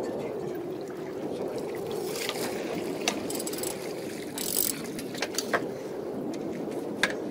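Boat motor running steadily, with a few sharp knocks and several short bursts of hiss about halfway through.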